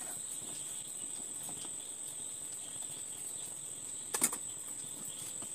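Water boiling in a stainless steel steamer pot, a steady hiss, with a short metal clatter about four seconds in as the steel idli stand is handled.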